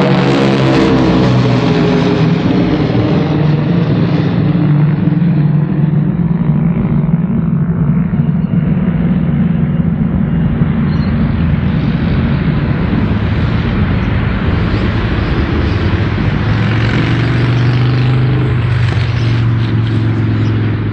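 Lockheed Constellation's four Wright R-3350 radial piston engines and propellers running with a steady, loud drone. The pitch sinks slightly in the first couple of seconds, and the sound dulls in the middle and grows brighter again toward the end.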